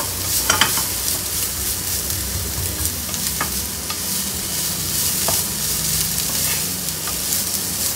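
Onion rings and green capsicum strips sizzling as they sauté in a pan, stirred with a wooden spatula, with a few short scrapes of the spatula against the pan.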